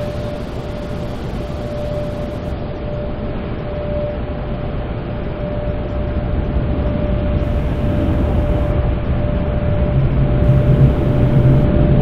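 Automated car wash heard from inside the car: a steady rush of spray and wash machinery with a constant high hum. It grows louder through the last few seconds as a low drone builds in.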